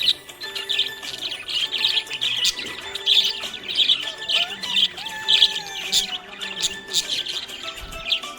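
Budgerigars chirping and warbling in a rapid, continuous stream of high chirps and short trills.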